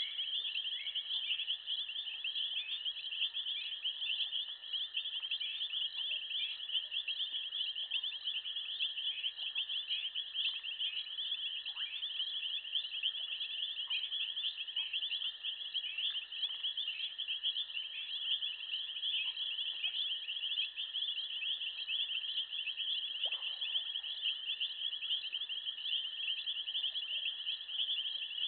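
Dense, steady chorus of night insects: a fast, high pulsing chirr with a fainter, lower steady drone beneath it.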